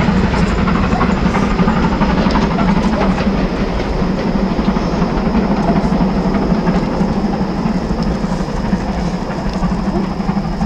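A steam-hauled train with a diesel locomotive on its rear, moving away along the line: a steady, loud rumble of wheels on the rails that fades slowly.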